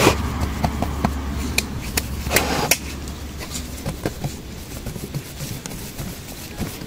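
Gloved hands pressing and smoothing a thick spiced paste onto flatbread on a wooden board: scattered soft pats and small taps, with a sharp knock at the very start and a longer rustle about two and a half seconds in.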